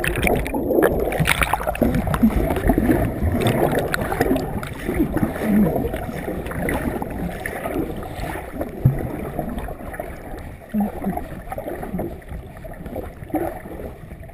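Muffled water sloshing and gurgling around a camera submerged in muddy pond water, with scattered short bubbling notes. It is loudest at first and dies down over the second half.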